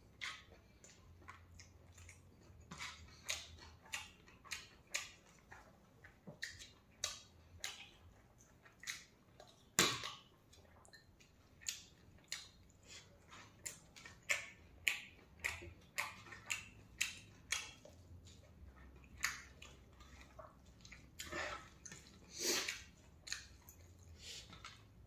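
Wet chewing and lip-smacking of a person eating rice by hand: irregular short smacks, a few per second, with a sharper click about ten seconds in.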